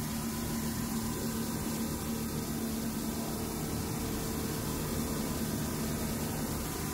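Boat engine running steadily, a constant droning hum under a rushing hiss of wind and water.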